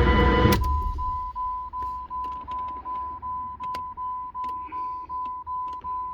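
2000 Jeep Grand Cherokee's 4.7 L PowerTech V8 running, then shut off about half a second in. After it, the vehicle's warning chime keeps dinging, one steady high tone about three times a second, with a few faint clicks.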